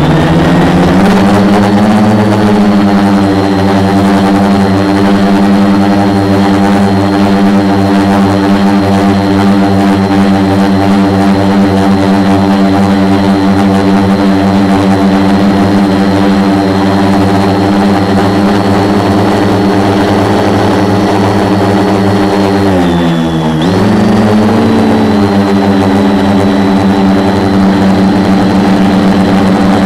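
Brushless motors and 10-inch propellers of a 450-size quadcopter, heard from a camera mounted on its frame, humming loud and steady with a thin high whine above. The pitch sags and climbs back about a second in, and again about three-quarters of the way through, as the motor speed changes.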